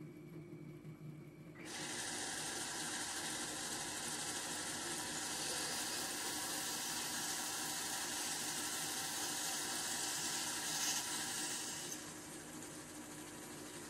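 Myford Super 7 lathe running with a steady hum, while a hand file rasps against the end of the spinning tube with an even hiss. The filing starts about two seconds in and stops about two seconds before the end, leaving the lathe running on its own.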